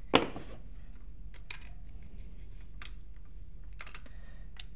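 Scattered light clicks and taps of Allen keys and small parts being handled against a plastic pistol frame and tabletop, with one sharper clack just at the start.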